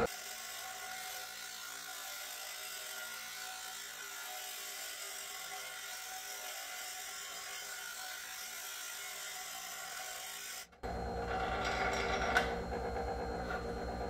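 Bench grinder grinding the edge of a metal washer: a steady rasping hiss of metal against the abrasive wheel. Near the end the sound briefly cuts out, and a louder, lower hum of the running grinder follows.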